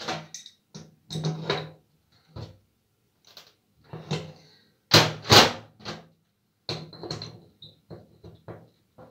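Knocks, clicks and short scrapes of tools and metal parts being handled as a kitchen faucet's valve cartridge is screwed back into the body, with two louder knocks close together about five seconds in.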